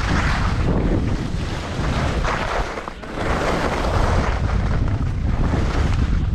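Wind buffeting the microphone of a skier's camera during a fast downhill run, with the hiss and scrape of skis turning on packed, chopped-up snow swelling and fading every second or so. The rush drops briefly about halfway through.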